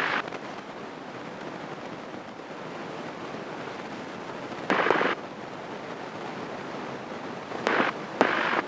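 Steady hiss of a light airplane's engine and cockpit noise heard through the headset intercom while taxiing, with two short louder bursts, each cut in and out by a click, about five seconds in and near the end.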